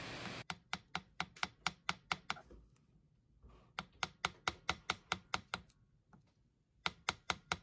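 Small hammer tapping a thin, rusted metal axle rod against the steel anvil of a bench vise: light, sharp metal taps, about four to five a second, in three runs with short pauses between them. The bent axle is being hammered straight.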